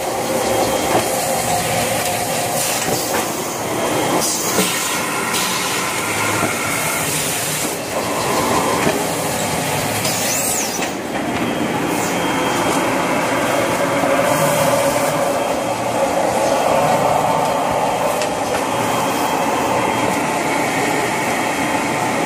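Automatic toilet-roll and kitchen-towel packaging machine running: steady mechanical clatter and hiss with scattered clicks and knocks.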